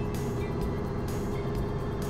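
Cabri G2 helicopter's piston engine and rotors running steadily, heard from inside the cockpit as it slows into a hover: an even drone with a constant tone over it.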